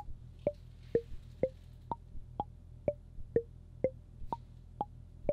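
Intellijel Plonk physical-modelling percussion module playing a marimba-like sound: short struck notes, about two a second, stepping through a short looping melody of changing pitches. The melody is sequenced from a Monome Teletype tracker pattern.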